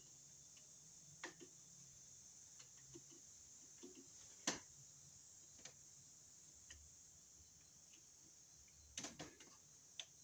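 Near silence broken by a few faint, scattered clicks of a hand screwdriver working the brass terminal screw of a 30-amp receptacle, tightening the black wire under it. The sharpest click comes about four and a half seconds in, with a small cluster near the end.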